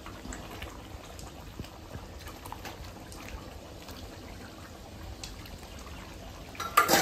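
Fish curry bubbling and simmering in a pot, a steady low liquid sound with small scattered pops. A brief loud sound comes just before the end.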